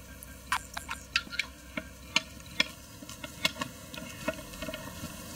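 Wooden pump drill being worked by hand, giving irregular sharp clicks and knocks as the crossbar is pushed down and rides back up the spindle.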